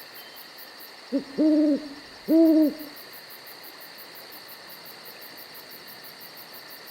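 Owl hooting sound effect: a short hoot and then two longer hoots about a second in, each rising and then falling a little in pitch. Crickets chirp steadily in a fast, even rhythm throughout.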